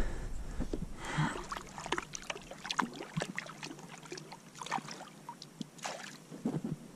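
Small splashes and water lapping against the side of a fishing boat, with scattered light clicks and knocks.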